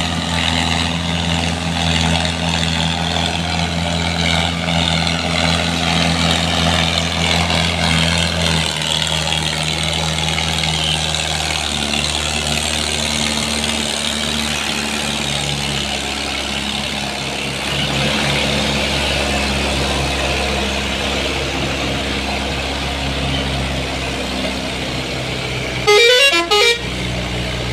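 Diesel tractor engines pulling heavy loads of sugarcane, running steadily with the engine note shifting as the tractors pass. Near the end a vehicle horn blares loudly in a warbling tone for about a second.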